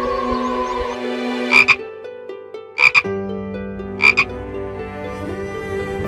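Three short, sharp animal calls about a second and a quarter apart, each a quick double note, over steady background music.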